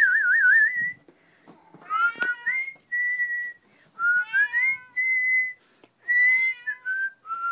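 A person whistling, a warbling trill and then several short held notes, while a Maine coon cat meows back in between, about three rising meows that alternate with the whistles.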